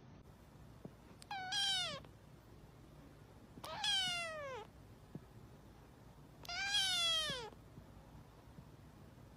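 Kitten meowing three times, a couple of seconds apart, each high meow sliding down in pitch at the end.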